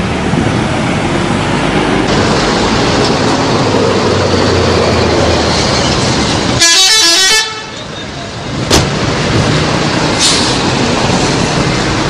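Coach buses driving past with engine noise and horn toots over a loud, steady wash of street noise. About seven seconds in there is a short burst of digital glitch noise, then two sharp clicks.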